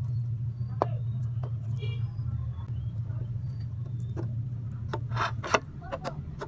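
Plastic rice paddle knocking and scraping against a metal tin while sticky pandan kalamay is pressed into it: a few sharp taps about a second in and a quick cluster of louder knocks near the end, over a steady low hum.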